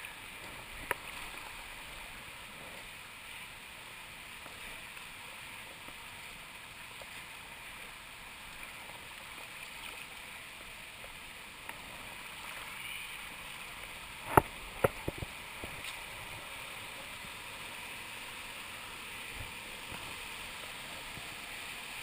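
Steady rushing of river water over rocks and small cascades. Two or three sharp knocks come close together about two-thirds of the way through.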